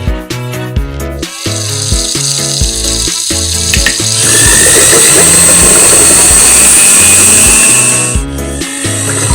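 Background music with a steady beat; about four seconds in, a PAHL V31 garbage disposal runs with water, a loud grinding rush with a high whine, for about four seconds before it stops and the music carries on.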